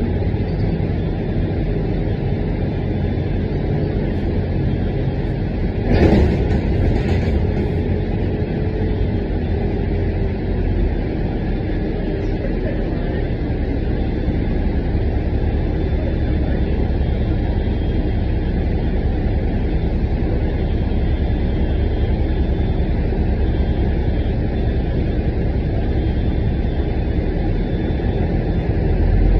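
City bus in motion, heard from inside the cabin: a steady low engine and road rumble. A sharp knock about six seconds in, with a smaller one a second later.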